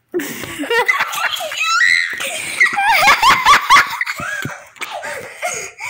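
Children shrieking and laughing, loud for about four seconds, then trailing off.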